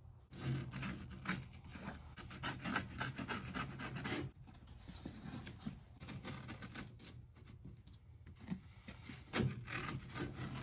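Razor blade cutting through an old, brittle door water shield, which tears and crackles as it is cut. Irregular scraping and rustling strokes, a little louder about four seconds in and again near the end.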